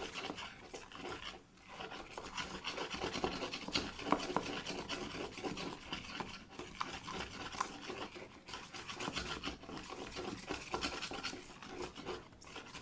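Slime mixture being stirred in a clear plastic tub, the utensil scraping and rubbing against the plastic in quick, continuous strokes, with a brief pause about a second and a half in.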